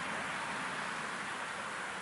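Steady, even rushing background noise with nothing distinct standing out.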